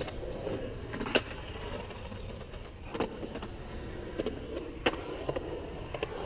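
Skateboard wheels rolling on a concrete bowl, a steady rumble, with a few sharp clacks of the board.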